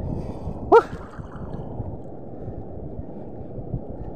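Steady rumble of wind on the microphone and moving water. Just under a second in comes one short, loud cry that rises in pitch.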